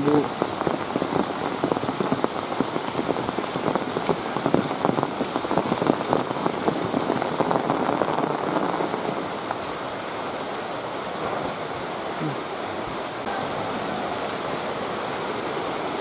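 Rain falling steadily, with many close drop hits for the first nine seconds or so, then a smoother, slightly quieter hiss of rain.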